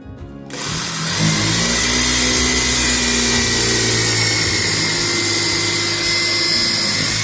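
Electric drill starting up about half a second in and running at steady full speed, boring a hole in wood, with a high whine throughout.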